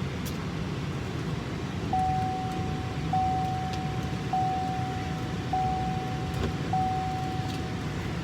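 Car's warning chime sounding five times, an even, single-pitched beep of about a second each, over the steady low noise of the car.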